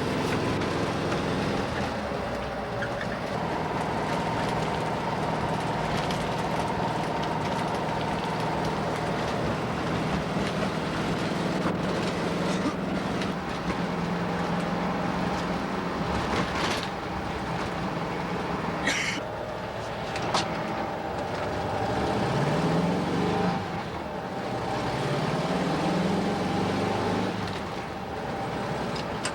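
A motor vehicle's engine running steadily, with a few clicks; near the end the pitch rises twice, like an engine revving up.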